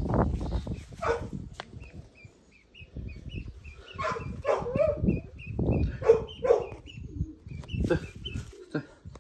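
Rustling and thumping handling noise as the duckling is carried in the hand, with a run of short, high, evenly repeated peeps in the middle and a few louder, lower calls.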